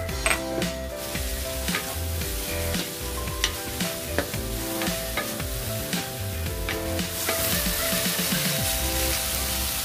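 Bean sprouts and vegetables sizzling as they are stir-fried in a stainless steel wok, with a wooden spatula scraping and knocking against the pan. The sizzle grows louder about seven seconds in, over soft background music.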